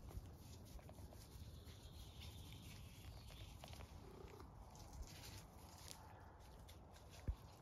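Tabby cat purring faintly while being stroked, a steady low rumble, with one sharp click near the end.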